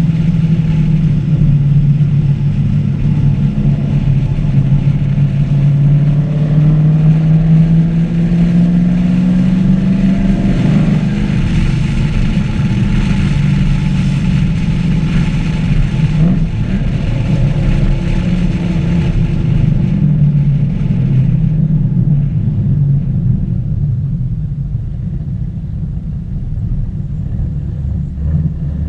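2014 Camaro SS 1LE's 6.2-litre V8 under way on track, its note climbing slowly for about ten seconds, then dropping as it lifts off, running on at part throttle and getting quieter over the last few seconds as the car slows, over a steady rush of road noise.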